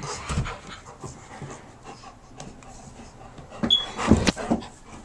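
A dog panting in quick, irregular breaths, with a few louder knocks about four seconds in.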